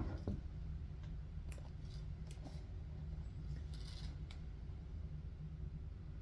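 Faint, scattered light clicks and taps of a hard plastic graded-comic slab being handled, over a low steady hum.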